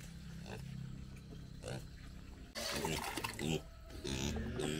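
Young pig giving several loud, short grunts and squeals from about halfway in as it comes to its feeding bowl, with a low steady hum underneath in the first half.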